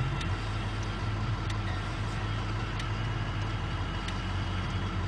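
Steady low rumble of a diesel locomotive's engine under a haze of noise as it rams through deep snow drifts.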